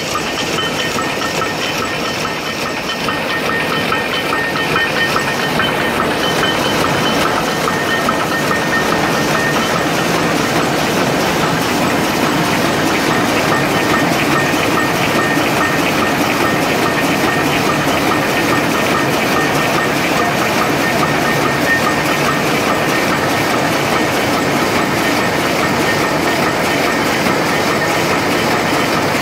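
Rapier loom with electronic jacquard running, a steady, rapid mechanical clatter.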